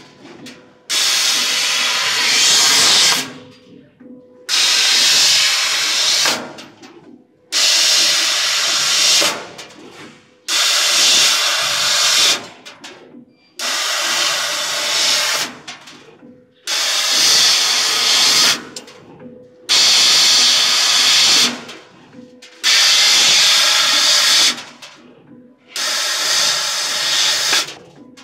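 Gas jet hissing from the cutting-head nozzle of a 150 W CO2 laser cutter as it cuts thin sheet metal. It comes as about nine loud bursts of two to three seconds each, starting abruptly, with a second or so of quiet between them as the gas switches on for each cut.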